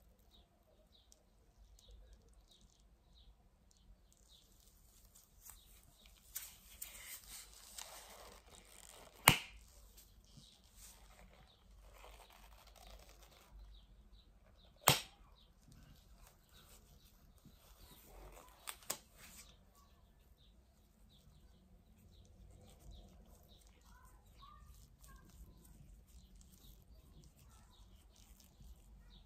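Latex gloves rustling as gloved hands rub and flex against each other, with two sharp snaps about five and a half seconds apart midway.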